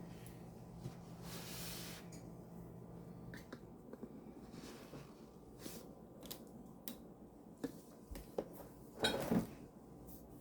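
Kitchen handling sounds as raw chicken wings are laid into a pan: scattered light clicks, knocks and soft squishes, with a louder clatter about nine seconds in.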